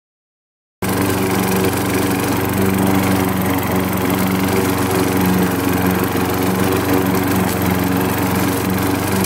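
Gasoline walk-behind lawn mower engine running steadily as the mower is pushed across grass, cutting in suddenly out of silence about a second in.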